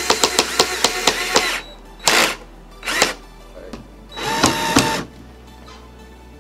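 Cordless drill driving self-tapping screws into a car's side splitter. First comes a run of about a second and a half with a rapid clicking rattle, then two short bursts, then a shorter whirring run with the motor whine audible.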